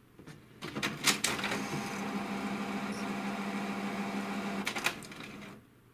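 HP DeskJet 2130 inkjet printer starting a print job: a few clicks, then its motor runs with a steady hum for about three seconds, a couple more clicks, and it stops. The pick rollers fail to draw the paper in, and the printer reports this as a paper jam.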